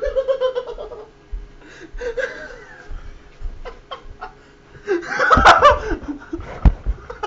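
A person laughing in several short bursts, the loudest and longest about five seconds in.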